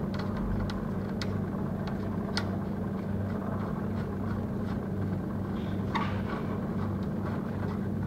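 Steady low electrical hum of lab equipment, with scattered faint small clicks of a coaxial connector nut being threaded by hand onto a network analyzer's test port.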